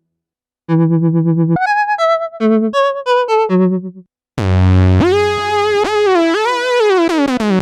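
Omnisphere 3 software synthesizer patch played on a keyboard: a short melodic run of pulsing notes, then after a brief gap a bright sustained tone that bends in pitch and glides downward near the end.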